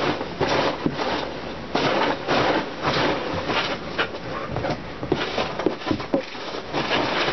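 Hands rummaging through a cardboard shipping box, rustling and scraping the box and its contents in irregular bursts.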